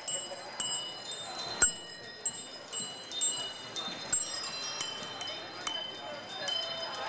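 Many bicycle bells ringing from a large group of cyclists: scattered, overlapping dings at several different pitches, each ringing on briefly after the strike.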